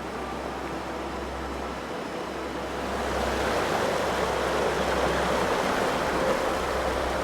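A steady rushing noise, growing louder about three seconds in, over a low rumble.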